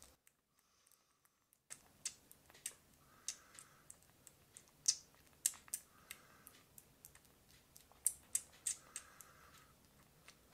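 Kitten suckling milk from a nursing bottle: irregular small wet clicks and smacks of its mouth on the nipple, starting after a short quiet spell about a second and a half in.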